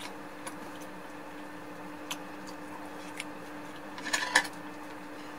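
Quiet sounds of someone eating a freshly fried, egg-battered jeon: a few faint clicks and a short rustling burst about four seconds in, over a steady low hum.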